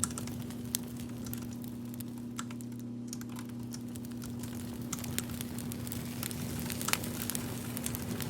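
Scattered, irregular light clicks and crackles over a steady low hum.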